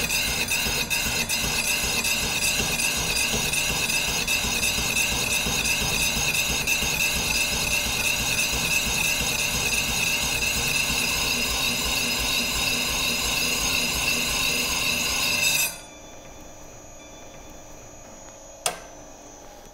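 Bevel of a round slicer knife being ground on the ADEMS Slicer's spinning 125/100-grit diamond grinding wheel: a loud, steady, high-pitched grinding whine. About 16 seconds in the knife comes off the wheel and the grinding stops abruptly, leaving the quieter hum of the machine still running, with a single click near the end.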